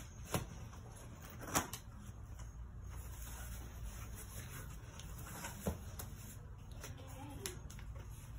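A cardboard shipping box being opened and handled: four sharp clicks and taps as the flaps and contents are worked, the loudest about one and a half seconds in, with soft cardboard and paper rustling over a low steady hum.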